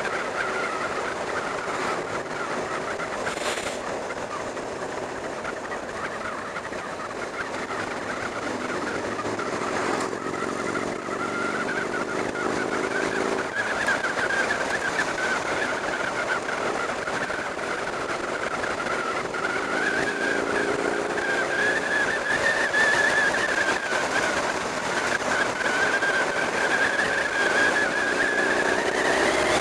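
Motorcycle engine running under way, mixed with rushing wind noise over the camera. The engine note climbs slowly twice under acceleration, the first rise breaking off abruptly about halfway through.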